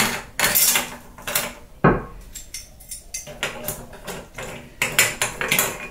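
Plastic push button being unscrewed from a ceramic toilet cistern lid: a series of short clicks, scrapes and knocks, the sharpest about two seconds in.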